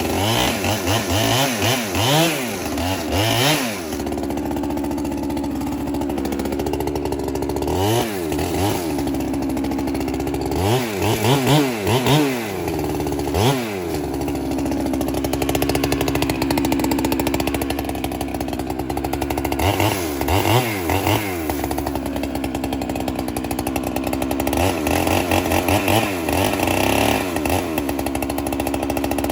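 Holzfforma chainsaw bucking firewood. The engine revs up and down in repeated bursts, with long stretches at a steady pitch between them, as if held in the cut.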